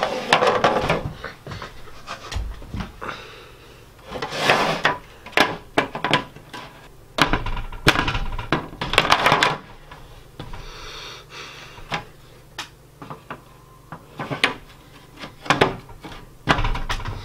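Pieces of a stacking desk letter tray being handled and pushed together by hand: irregular knocks, clicks and clatters with rubbing and rustling between them.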